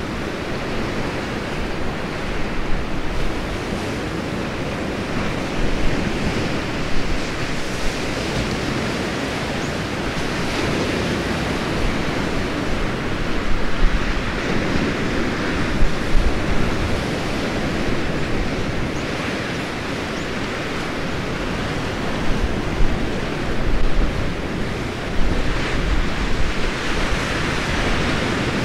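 Rough sea surf washing and breaking in a continuous rush, with several louder surges through the middle and later part, and some low wind rumble.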